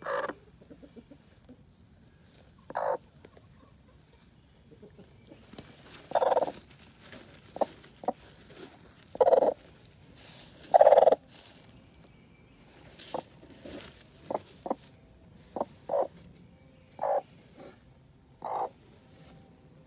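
Hen sitting in a nest box giving a series of short, irregularly spaced clucking calls while being handled, about a dozen in all, loudest around the middle.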